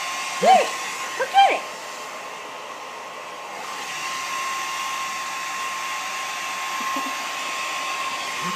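Handheld hair dryer running steadily, a blowing hiss with a constant high whine. Two short, loud cries break in during the first second and a half.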